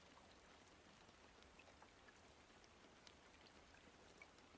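Faint steady rain with scattered light drop ticks.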